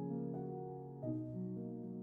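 Calm, slow background piano music, with a new chord struck about a second in.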